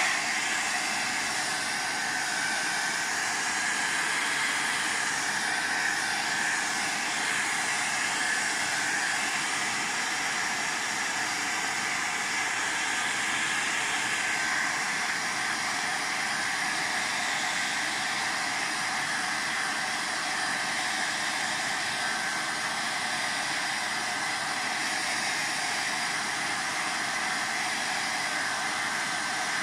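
Handheld electric hot-air dryer running steadily at one speed with a faint whine, blowing on wet paint to dry the layers of an art-journal page.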